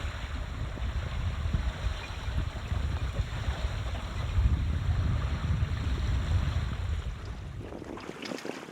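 Wind buffeting the microphone over the rush of water along a small sailboat under sail. Near the end the low wind rumble drops away and a run of quick splashing ticks takes over.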